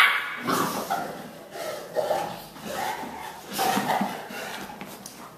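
A bullmastiff and a Rottweiler puppy play-fighting: short, uneven dog growls and grunts with scuffling, opening with one sharp loud sound.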